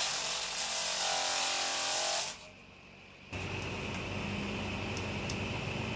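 Bench-mounted table saw ripping a wooden plank lengthwise, a steady hiss with a faint blade whine, which stops about two seconds in. After a short lull, a steady low electric buzz starts and runs on.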